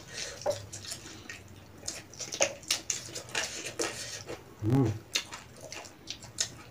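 Close-up mukbang eating sounds: wet chewing and lip smacks as chicken is eaten by hand, many small clicks in a row. A short pitched voice-like sound, like a brief 'mm', comes a little under five seconds in.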